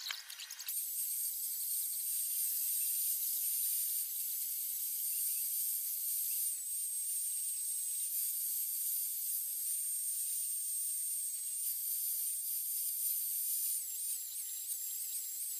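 Handheld electric angle grinder with a sanding disc switching on about a second in and running at a steady high whine with hiss while it sands a wooden slingshot fork. The whine's pitch wavers near the end as the disc is pressed into the wood.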